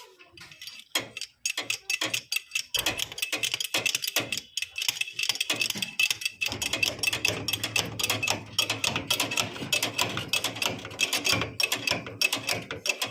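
E-rickshaw body rattling: a fast, irregular run of metallic clicks and knocks, the body noise the video sets out to cure. A steady low hum joins in about six and a half seconds in.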